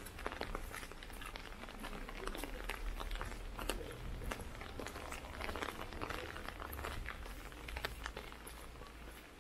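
Footsteps of someone walking on a paved street, a run of irregular scuffs and clicks over a low steady rumble.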